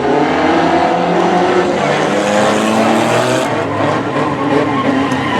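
Several banger race cars' engines running hard together, their pitches rising and falling as they rev.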